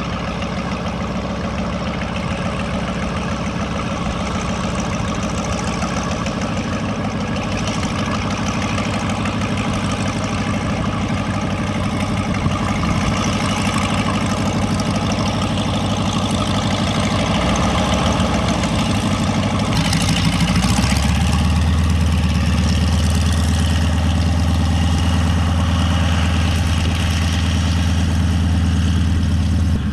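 Yak-50's nine-cylinder radial engine running at low power while the aircraft taxis, propeller turning. About two-thirds of the way through, the engine note shifts and a deep low hum grows stronger.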